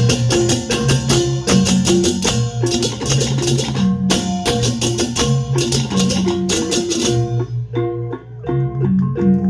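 Balinese balaganjur gamelan playing: crashing cymbals in fast, even strokes over interlocking low gong-chime and gong tones. About seven seconds in the cymbals drop out and the pitched gong melody carries on alone.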